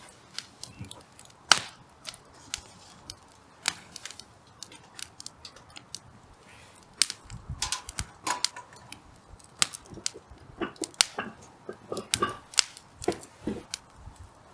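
Hardwood firewood burning, crackling with irregular sharp pops, some loud and some faint, more frequent in the second half.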